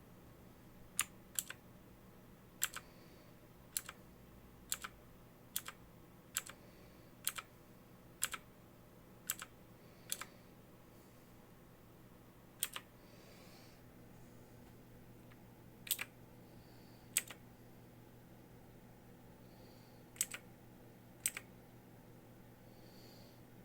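Motospeed K87S mechanical keyboard keys being pressed one at a time, about one a second with a few pauses. Each press gives a sharp click, often followed at once by a second click as the key comes back up.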